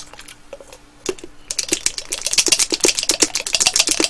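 Small chocolate balls rattling and clicking inside a hollow ball-shaped container as it is shaken and tipped up. A few clicks come first, then a dense rapid rattle from about a second and a half in. The chocolates are stuck and won't come out.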